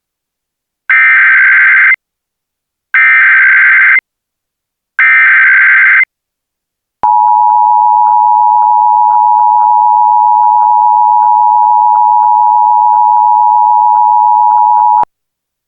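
Emergency Alert System signal: three one-second bursts of the SAME digital header's data warble, then a steady two-tone attention signal just under 1 kHz that runs about eight seconds and cuts off. Together they mark the start of a new emergency alert message.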